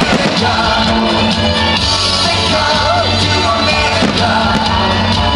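Loud music playing.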